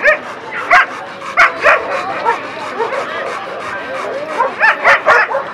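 Dogs barking in short, sharp barks: about four in the first two seconds, then a quick run of four near the end, over crowd chatter.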